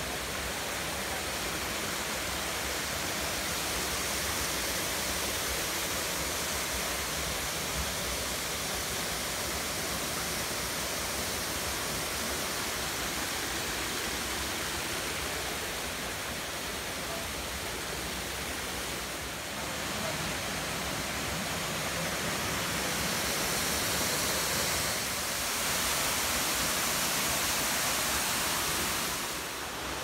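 Steady rush of water from a waterfall, an even hiss with no breaks; it swells a little in the last few seconds and eases off near the end.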